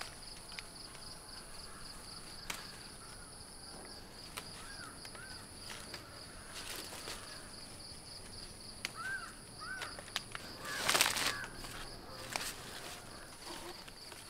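Bean vines and leaves rustling and snapping as green beans are picked by hand, with one louder rustle about eleven seconds in. Behind it an insect calls in steady rapid pulses, and a bird gives two pairs of short calls.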